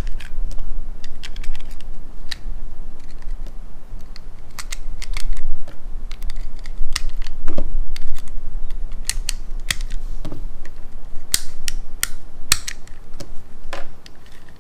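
Plastic toy cartridges being pressed one at a time into a plastic toy Glock magazine: irregular sharp clicks and snaps, some louder, several seconds apart.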